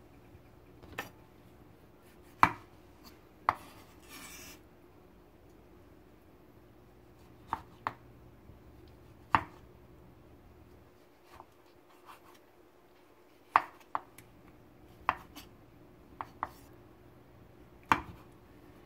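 Kitchen knife cutting a peeled tomato on a wooden cutting board, the blade knocking on the board in sharp, irregular taps, about fourteen in all with a pause of a few seconds early on.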